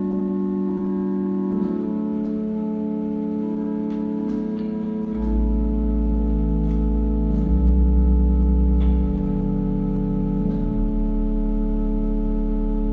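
Organ playing slow, sustained chords, with a deep pedal bass coming in about five seconds in.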